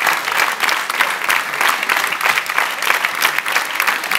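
Large audience applauding steadily: dense, continuous clapping from many hands.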